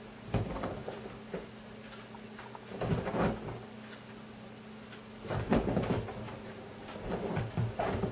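A cat's paws thumping and scrabbling on soft sofa cushions as it pounces, in short bursts of knocks and scuffles: near the start, about three seconds in, about five and a half seconds in, and again near the end.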